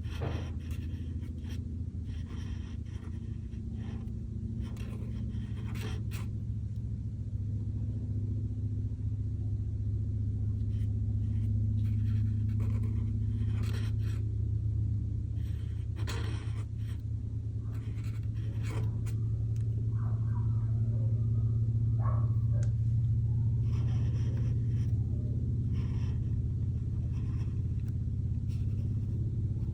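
A steady low hum that swells slowly and eases again, with short scratchy strokes now and then over it.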